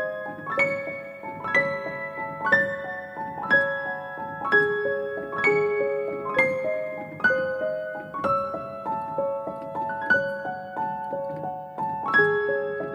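Slow piano music: a repeating pattern of struck notes, about two a second, each ringing and fading.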